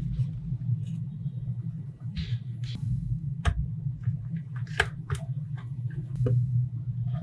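Small magnetic balls clicking as they snap together, several short sharp clicks scattered through the second half, over a steady low hum.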